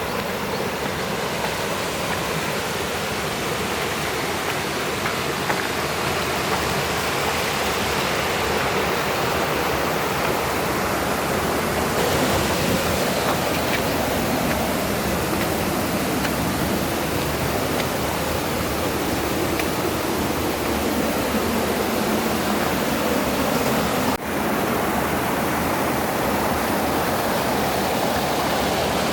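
Mountain stream rushing steadily over rocks, a continuous loud wash of water, with a momentary drop about 24 seconds in.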